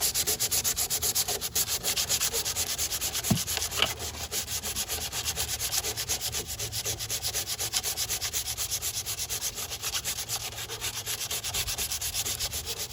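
Sandpaper rubbed back and forth by hand over cured Bondo body filler on a car body panel, in fast, even strokes of about five a second.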